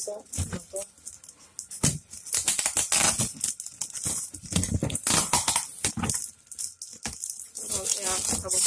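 Packing tape being torn and peeled off a cardboard box, with the cardboard flaps rubbing and crinkling in irregular scrapes and rips.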